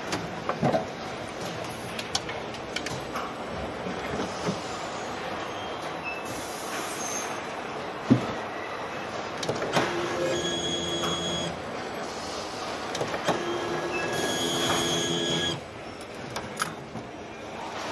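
Car assembly plant ambience: steady machinery noise with scattered knocks and clicks of parts being fitted, one sharper knock about halfway through. Twice, a pitched whine runs for a second or two.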